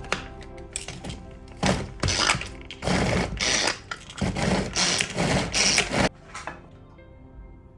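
A small electric kitchen motor run in about six short pulses, over soft background music.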